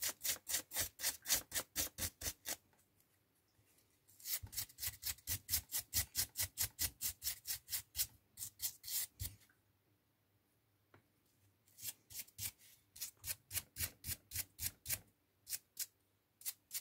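Brisk back-and-forth scrubbing of a bristle brush wet with propanol on the small parts of a car key fob, about four or five strokes a second. It comes in several runs of strokes with short pauses between them.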